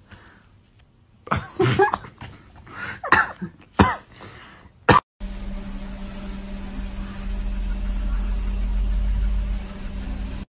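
Several short, rough, cough-like sounds from a cat in a cone collar. About five seconds in, these give way to a steady low rumble with a constant hum, the cabin noise of a car.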